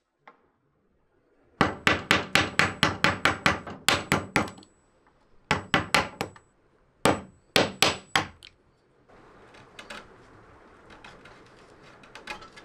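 A chisel struck again and again to chop a notch out of a wooden board between two saw cuts, with sharp knocks as chips split away. A quick run of strikes about four a second comes first, then two short groups of a few strikes. Near the end there is only a faint steady noise.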